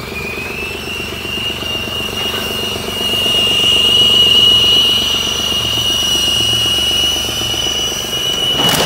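A steady high whistle, like a whistling pressure cooker, coming from a crash-damaged BMW 116d diesel, over the low hum of a running engine. The whistle climbs slightly in pitch in the first second, and the sound grows louder about three seconds in.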